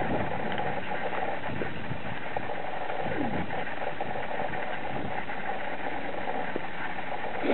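Suzuki SV1000S's 90-degree V-twin idling steadily through an aftermarket Beowulf exhaust.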